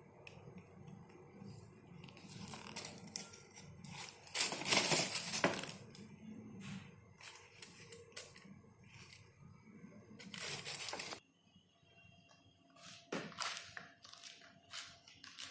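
Packaging being handled, crinkling and tearing in several bursts, the longest and loudest about a third of the way through. A low hum underneath cuts off about two-thirds of the way in.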